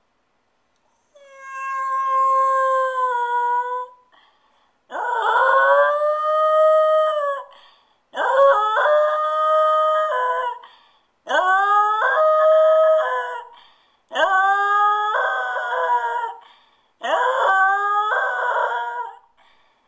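Jack Russell terrier howling while left home alone: six long howls of about two and a half seconds each, starting about a second in, with short breaks between them, each sliding up in pitch at its start.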